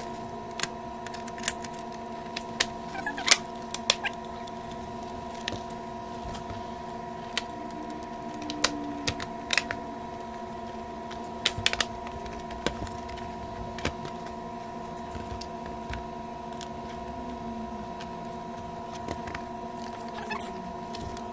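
Scattered, irregular clicks and taps of monitor parts and tools being handled during reassembly, over a steady hum of several fixed tones.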